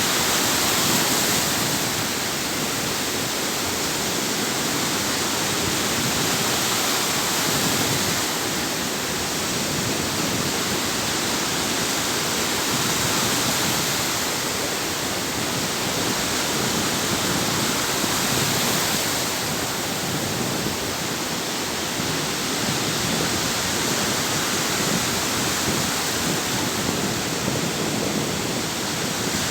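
Sea waves breaking and washing ashore: a steady hiss of surf that swells about every six seconds.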